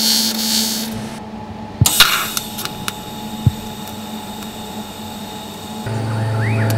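Electric arc welding as a small bracket is tack-welded on: a hissing burst of about a second, a short pause, then a second shorter burst, followed by a quieter steady hiss. A low hum comes in near the end.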